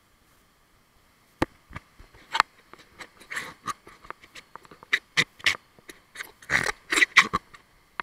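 A run of irregular sharp knocks and short scuffing noises close to the microphone, starting about a second and a half in.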